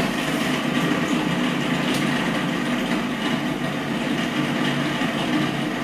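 Food processor switching on and running steadily, its blade chopping cold butter pieces into flour and sugar to give a sandy shortcrust mix.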